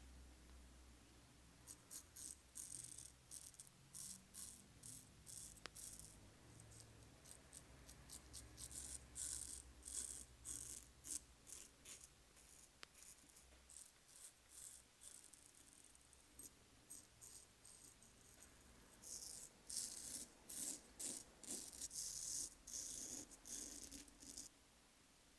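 Straight razor scraping through lathered beard stubble in many short, crisp strokes, coming in quick runs with brief pauses between them.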